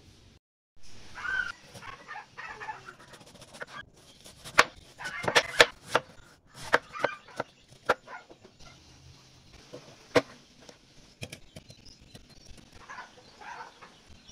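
A knife cutting watermelon on a wooden cutting board, giving a run of sharp knocks and clicks, loudest in the middle. Chickens cluck in the background near the start and near the end.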